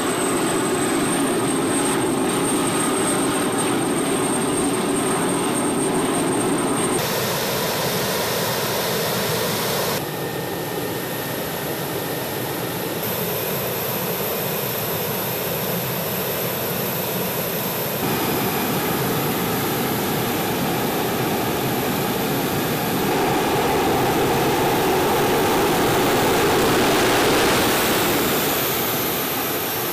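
F-16 Fighting Falcon jet engines running on the ground, a loud steady rush with a high whine, kept turning while the jets are serviced in a hot pit. The tone and level shift abruptly several times as the shots change.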